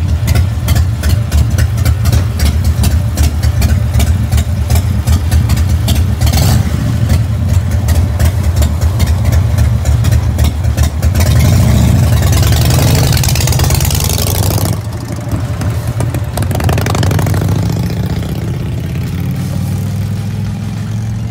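1993 Harley-Davidson Softail's Evolution V-twin idling with a loud, uneven beat, revved for a couple of seconds about halfway through, then settling to a steadier, quieter running sound.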